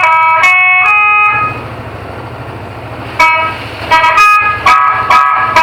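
Electric telolet horn, played from an Android phone app through a speaker instead of air trumpets, sounding its quick jingle of stepped multi-note horn tones. It breaks off about a second and a half in, leaving a low hum and hiss, and starts again about three seconds in.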